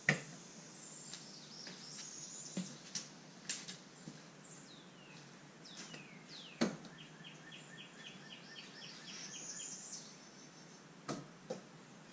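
Birds singing: high whistled notes, some sliding downward, then a quick run of about six short notes a second. A few sharp knocks from handling the outboard cut in, the loudest right at the start and about six and a half seconds in.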